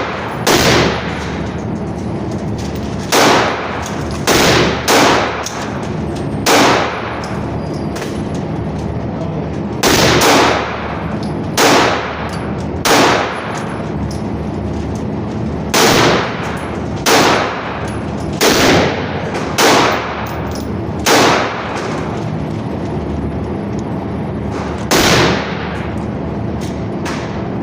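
Single gunshots at a shooting range, about sixteen shots fired one at a time at uneven gaps of roughly one to four seconds, each with a short echo, over a steady background noise.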